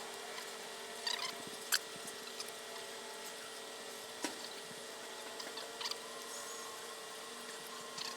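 A few scattered light clicks and taps of hand tools and small trimmer parts being handled during disassembly, over a steady faint hum.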